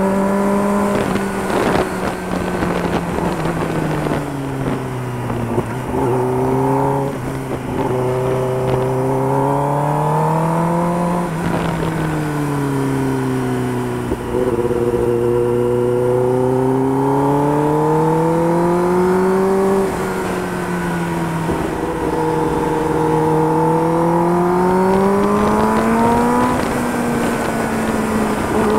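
Kawasaki ZX-10R's inline-four engine running under way, its note climbing and falling with the throttle several times over. The pitch and loudness drop off suddenly about twenty seconds in, then climb again.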